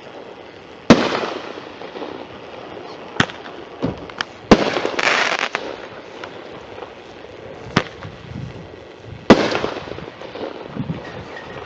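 Consumer fireworks going off: about six sharp bangs a few seconds apart. Three are loud, with a tail that dies away over about a second, and a crackling hiss follows the bang in the middle.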